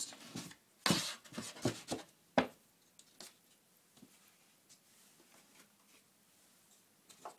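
The wooden panel of a dust-extractor enclosure box is being fitted back on. A handful of knocks and scrapes come in the first couple of seconds, the loudest a sharp knock near the middle of them. Then there are faint clicks and ticks as small wooden turn-buttons are turned to hold the panel.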